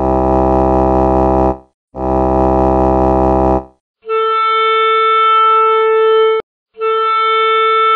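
Four long, held horn-like blasts: two low ones, then two higher and clearer ones, each cut off abruptly.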